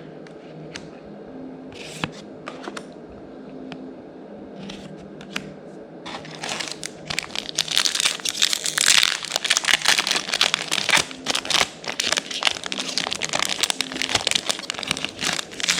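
A few light clicks of cards being handled, then, about six seconds in, a dense run of crinkling: a foil booster pack wrapper being torn open and crumpled.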